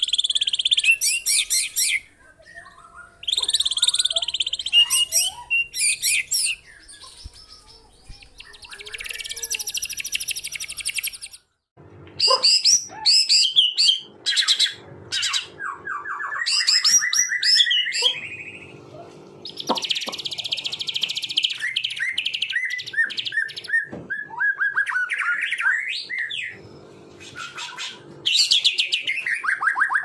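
White-rumped shama (murai batu) singing a loud, varied song. Harsh rasping bursts alternate with quick whistled notes and fast falling runs, with a brief break near the middle.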